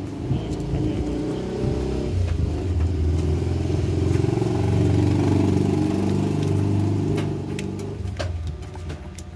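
A motor vehicle's engine passing by, growing to its loudest about halfway through and fading away near the end.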